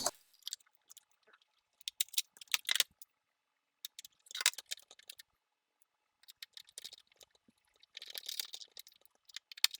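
Plastic body parts of a GoPro Karma drone clicking and rattling lightly as they are handled and fitted back together, in scattered groups of small clicks.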